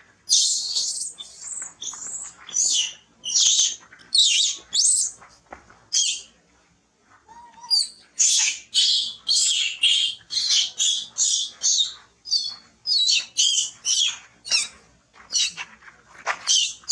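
A monkey's repeated high-pitched squealing calls, short cries one after another. There is a brief pause about six seconds in, then a quicker run of about three cries a second.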